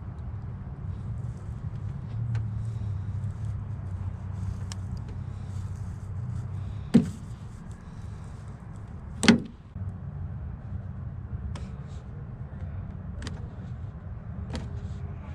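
Handling of tools and parts while working on a car door: a few light clicks and two sharp knocks a couple of seconds apart, over a steady low hum.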